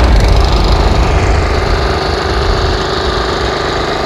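Gasoline lawn mower engine running steadily, with a deep rumble and a steady hum.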